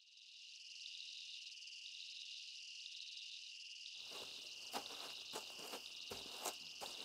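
Crickets chirring in a faint, steady high trill. About four seconds in, a few footsteps approach.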